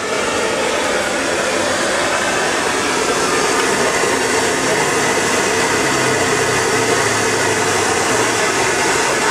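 Steady rushing noise of noodles cooking in a steaming wok over a strong gas burner.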